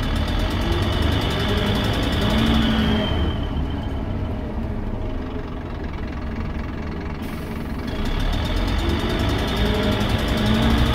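Scania K270UB bus's five-cylinder diesel engine running under way, heard from inside the passenger cabin, with a loud exhaust beat that sounds like a Lanz Bulldog tractor. The uploader takes this for an exhaust manifold leak or bad valves. A faint high whine fades out about four seconds in and comes back about eight seconds in, as the engine gets louder again.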